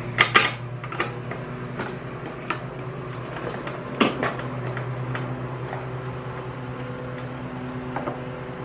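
Scattered clicks and knocks of hand tools on the Echo PB-755T backpack blower's engine as the spark plug is taken out, with a louder knock about four seconds in. A steady low hum runs underneath.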